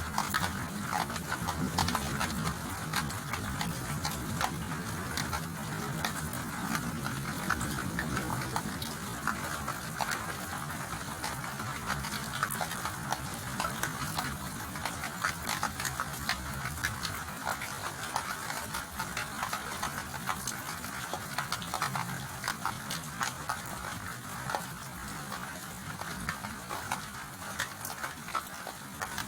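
Steady rain falling, a dense patter of close drop hits over a hiss. A low rumble, distant thunder, sits under it for about the first half and fades away.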